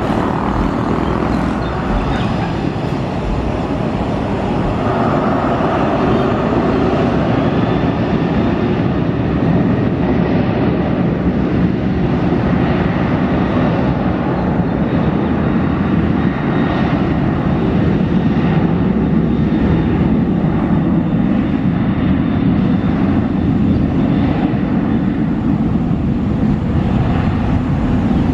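Jet engines of a Boeing 737 airliner running as it rolls along the runway: a loud, steady, even rush of engine noise heard from a distance.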